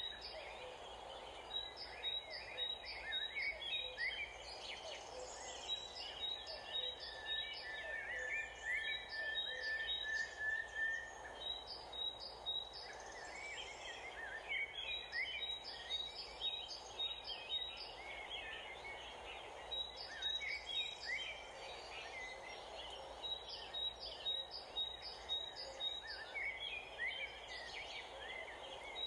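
Outdoor ambience of several birds chirping and singing, with short rising and falling calls throughout and one held, even note for a few seconds near the middle, over a steady background hum.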